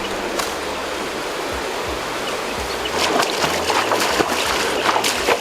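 Water running steadily, then splashing and sloshing from about three seconds in.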